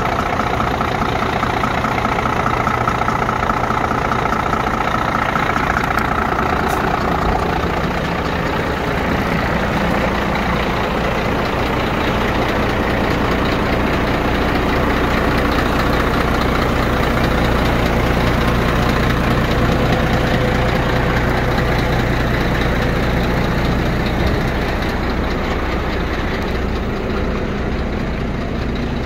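Scania P114 dump truck's 11-litre straight-six diesel engine idling steadily.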